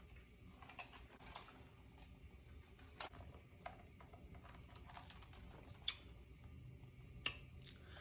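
Near silence with a handful of faint, sharp clicks while drinking from a lidded plastic cup: small sips and the cup and lid being handled.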